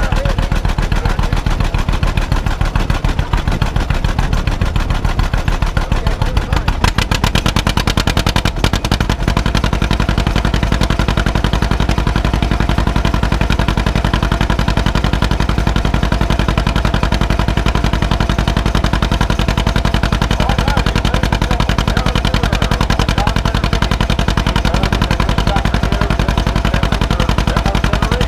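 1952 John Deere B's two-cylinder engine working hard under load as it pulls a weight-transfer sled, its exhaust firing in a rapid, even popping.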